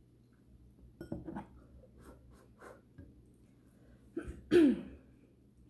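A woman coughing while eating, briefly about a second in and much harder near the end, with faint eating sounds between.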